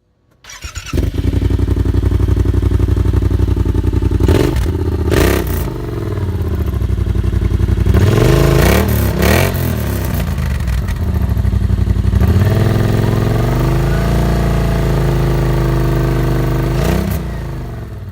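Yamaha Wolverine X4's parallel-twin engine exhaust: the engine starts about half a second in, idles, and is revved in a series of throttle blips, several in quick succession around the middle, then drops back toward idle before cutting off at the end.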